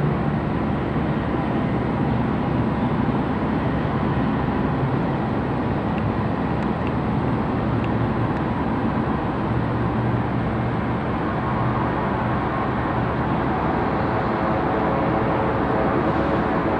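Steady airport ramp noise of aircraft engines running, with a low hum underneath; a steady whine of several tones joins about two-thirds of the way through.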